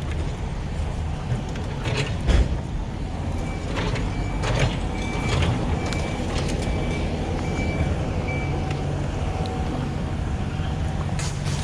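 A heavy vehicle's engine running steadily, with a reversing alarm beeping about once a second for several seconds in the middle. There are scattered knocks throughout.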